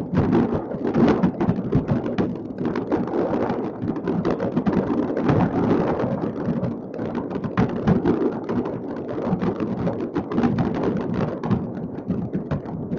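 Many fireworks going off across a city at once, heard from afar: a dense, unbroken barrage of overlapping bangs and crackles that blur into a rumble.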